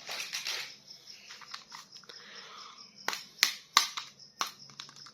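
A run of sharp plastic clicks and taps, about six of them roughly three a second in the last two seconds, after a soft rustle at the start: a plastic action figure being handled.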